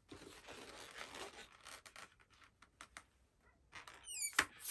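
Latex modelling balloon handled and cut with scissors: faint rustling, then a quick run of short squeaks falling in pitch about four seconds in as the blades press on the rubber, and sharp snips near the end as the leftover balloon is cut off the finished ball.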